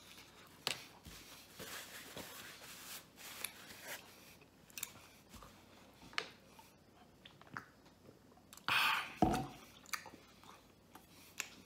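A man chewing a mouthful of pizza, with faint wet mouth clicks and small crunches of the crust, and a brief louder mouth noise about nine seconds in.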